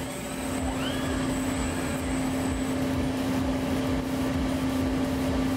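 Machinery of a robot-loaded CNC lathe cell running: a steady hum over a haze of noise, with a short rising whine about a second in that levels off.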